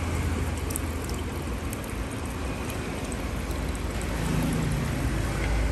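Water pouring in a steady stream from an electric kettle into a stainless steel pot of crab, filling it for hotpot broth.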